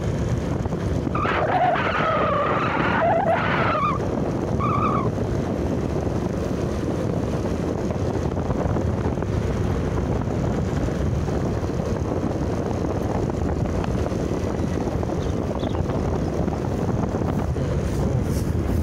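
Steady wind rush on the microphone mixed with the road noise of riding along a road. Between about one and four seconds in there is a wavering pitched sound, with a shorter one about a second later.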